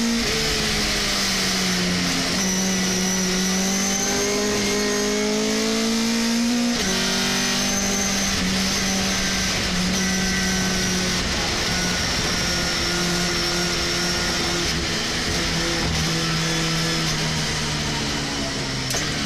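Racing pickup truck's engine heard from inside the cockpit at race speed. It revs up and drops sharply in pitch as it shifts up, about two and seven seconds in, then runs steadier with its pitch slowly falling.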